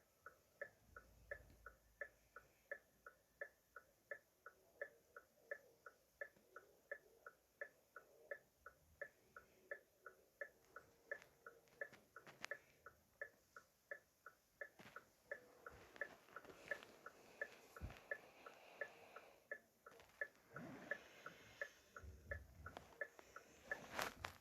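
Car hazard-light flasher ticking in an even, steady tick-tock rhythm as the indicators blink. Faint background noise rises in the second half, and a sharper click sounds near the end.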